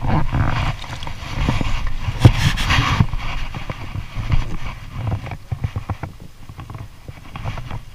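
Irregular knocks, scrapes and rubbing from a kayaker shifting about in a kayak in shallow water at the shore, close to the camera worn on his body, with a louder scuffing burst a couple of seconds in.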